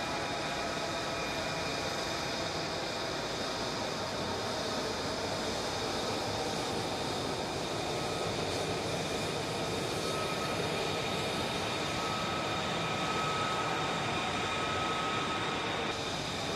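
F-35A Lightning II's Pratt & Whitney F135 turbofan running at taxi power: a steady jet rush with several high whining tones over it. One whine grows stronger past the halfway point and then fades near the end.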